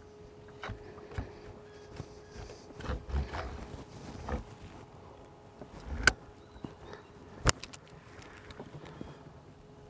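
Scattered knocks and bumps of gear being handled in a small fishing boat while a big catfish is landed. A cluster of heavier thuds comes about three seconds in, then two sharp clicks a second and a half apart.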